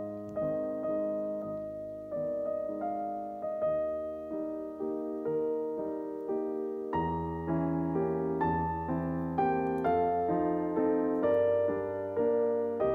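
Background piano music: struck notes in a steady, unhurried rhythm, each fading before the next, with deeper bass notes joining about halfway through.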